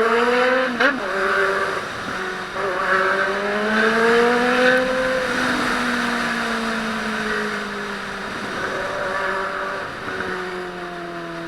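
Honda Hornet motorcycle's inline-four engine pulling in gear: the revs climb over the first few seconds, then ease off slowly, over steady wind and road noise.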